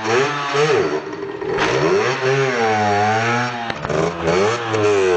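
MH dirt bike engine revving up and down as it rides, its pitch climbing and dropping back about five times.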